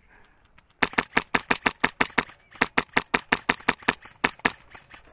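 Airsoft rifle firing a rapid string of shots, about seven a second, then a short pause and a second, longer string.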